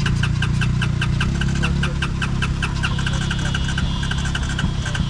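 Honda Recon 250 ATV's single-cylinder engine being turned over or run, a steady mechanical churn with even ticking beats about seven a second, after the machine was driven into deep water and flooded.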